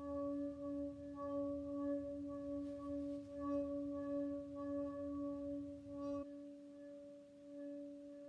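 Stainless steel pot, half full of water, sung by rubbing wet palms along its metal handles: a steady humming tone with overtones that swells and dips with the strokes, over a low rubbing noise. About six seconds in the rubbing stops and the pot's tone rings on more faintly.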